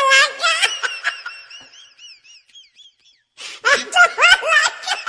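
Children laughing and giggling in high voices, trailing off into a run of short wavering squeaks, then a fresh burst of laughter after a brief pause about three and a half seconds in.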